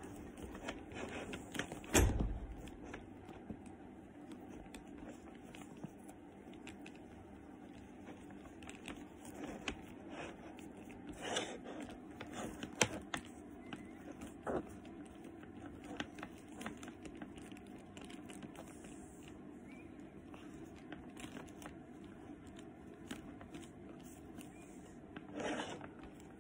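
Faint rustling and scraping of a silk twilly scarf being wrapped around a leather handbag's top handle, with scattered small clicks and taps from the bag and its hardware. A sharper knock comes about two seconds in.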